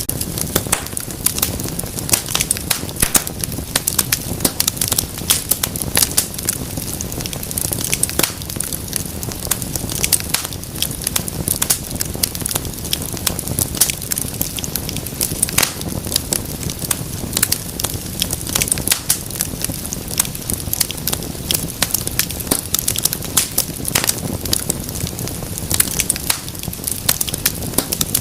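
Wood fire crackling and popping, with many irregular sharp snaps over a steady low rumble of flames.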